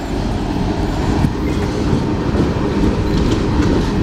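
Empty coal train of open hopper cars rolling past just below, a steady loud rumble of steel wheels on the rails with scattered clicks and knocks.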